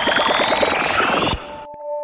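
Electronic logo-sting music: a rapid pulsing synth beat under a rising sweep, cutting off suddenly about a second and a half in, then a held ringing chord.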